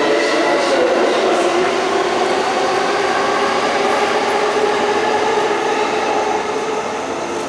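JR 583 series electric train pulling away from a station, its traction motors whining with a pitch that climbs slightly as it gathers speed, over the running noise of the wheels on the rails.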